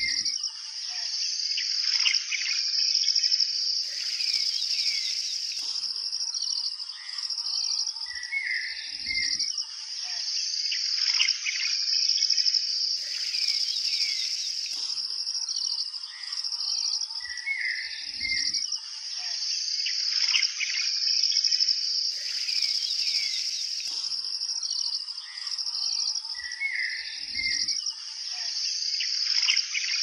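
Nature ambience: a steady, high-pitched insect chorus with birds chirping and calling over it. The same run of calls comes round again about every nine seconds, as in a looped recording.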